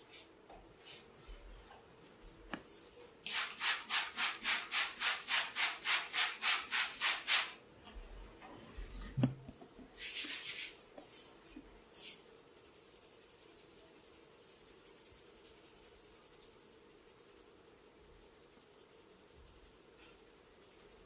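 Fast rubbing strokes over hair or skin during a head massage, about four a second for some four seconds. A few scattered rubs follow, then only a faint steady hiss.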